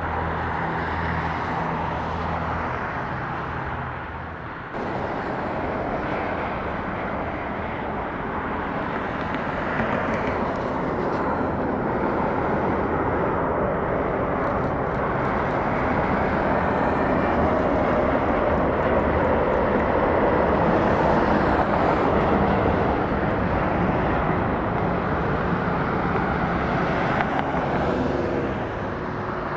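Airbus A350-900 jet engines, Rolls-Royce Trent XWBs, during the landing: a broad jet rush that swells through the middle and eases off near the end.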